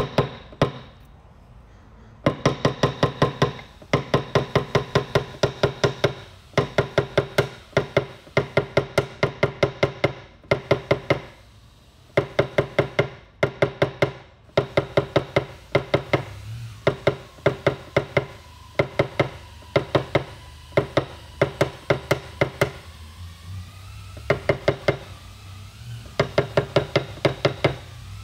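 PDR tap-down tool with a peewee tip struck with a small hammer against a steel panel. Rapid light taps, about six a second, come in bursts of one to two seconds with short pauses, each tap ringing. It is knocking down the high crown left after a glue pull.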